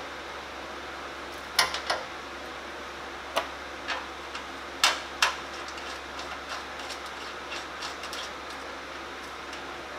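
Scattered sharp metallic clicks and clinks of bolts being fitted and threaded hand tight into a steel bumper bracket, over a steady background hum.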